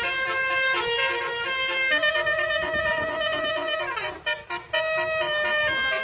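A multi-tone 'telolet' basuri musical horn playing a tune: a run of held horn notes stepping up and down in pitch, with a downward slide and two brief breaks about four seconds in.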